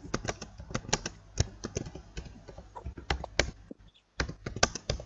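Typing on a computer keyboard: quick, irregular key clicks, with a brief pause about a second before the end.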